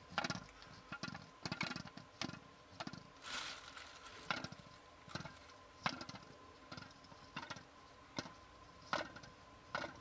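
Small ball rattling inside a clear plastic handheld basketball-hoop puzzle toy as it is tilted and turned, giving irregular light clicks and taps against the plastic shell. A brief rustle about three seconds in.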